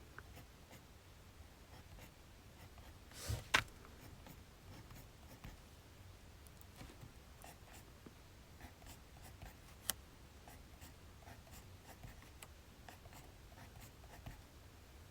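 Writing on paper: faint, scratchy pen strokes in short scattered bursts, with a louder knock about three and a half seconds in and a sharp click near ten seconds.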